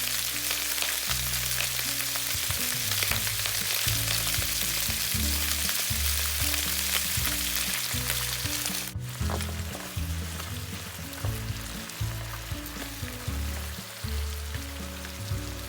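Stir-fry sizzling loudly in a hot pan while being stirred, with scattered clicks of the utensil against the pan; the sizzle drops suddenly to a quieter level about nine seconds in. Background music with low bass notes plays underneath.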